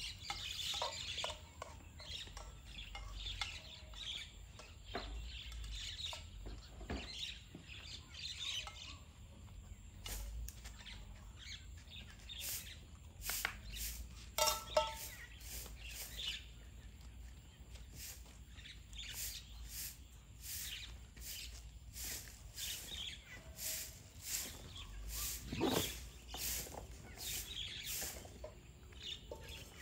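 Birds chirping over a group of puppies and dogs eating from bowls, with many short, sharp clicks that come thicker in the second half.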